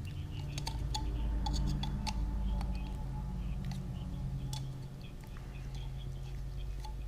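Scattered light clicks and metal taps from hand tools working on a chainsaw muffler, over a steady low hum.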